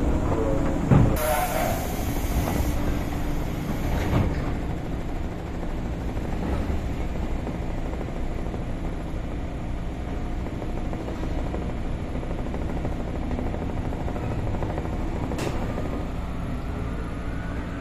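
Cabin of a 203 series electric commuter train's motor car standing at a station, with a steady low hum throughout. About a second in comes a thump and a brief burst of air hiss, then a smaller knock a few seconds later. Near the end the thyristor-chopper traction motors start a rising whine as the train begins to pull away.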